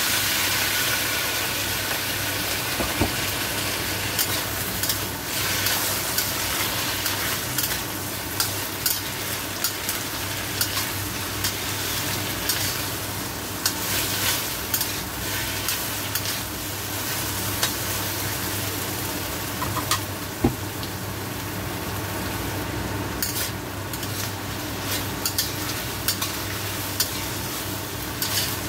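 Pork strips, bell pepper and onion sizzling in a hot wok while a metal ladle stirs and scrapes them, with scattered clinks of metal on the wok. The sizzle surges at the start as a soy-based sauce is poured in.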